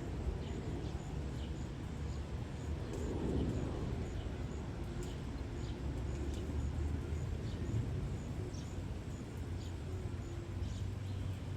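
Outdoor ambience: a steady low hum with small birds chirping briefly and repeatedly.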